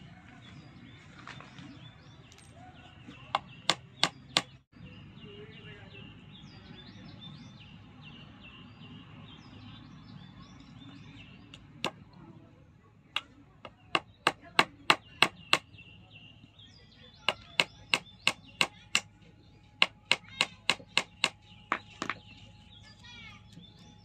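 Hammer driving nails into a forked wooden branch: sharp strikes on the nail heads. Four come about three seconds in, and after a pause the second half holds quick runs of five to eight blows each.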